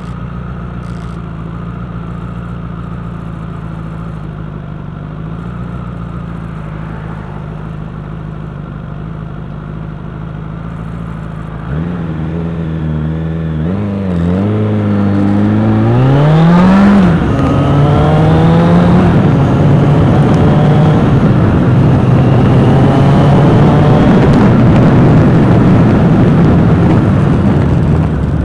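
Motor vehicle engine running steadily at low revs, then about twelve seconds in it revs up and accelerates, its pitch climbing, dropping back once at a gear change and climbing again, before it settles into a loud steady cruise with road and wind noise.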